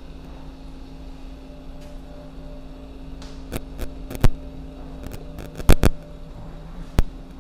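Footsteps on a hardwood floor: a few sharp, irregular knocks, some in quick pairs, the loudest just before six seconds in, over a steady low hum.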